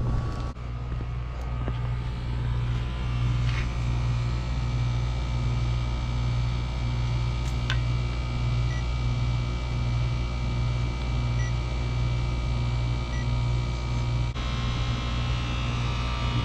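Old Rheem R-22 heat pump running in defrost: a steady low compressor hum with a slow, even pulsing. A click comes about fourteen seconds in, after which a higher hiss joins the hum.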